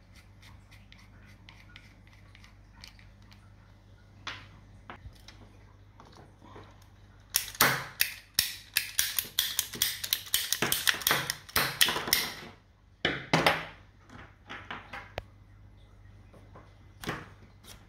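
Handheld plastic-pipe cutter clicking as it works through a 16 mm black LDPE irrigation supply pipe: a run of loud, sharp clicks, about four a second, lasting some five seconds from just before the middle, then a few more clicks. Faint clicks of plastic fittings being handled come before it.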